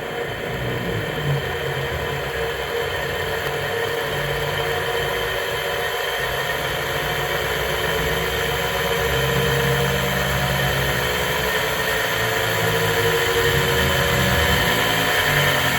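Panasonic air conditioner outdoor-unit fan motor running on overvoltage, whirring with a low rattling hum underneath. It gradually speeds up, its whine slowly rising in pitch and getting louder.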